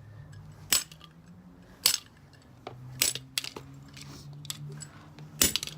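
Repeated sharp strikes smashing a plastic fidget cube: about five hard hits at uneven intervals, roughly a second apart.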